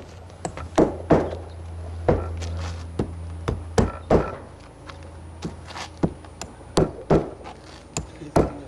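Irregular sharp knocks and taps from hand work on a tile roof, about a dozen scattered through the stretch, with a low steady hum underneath in the first half.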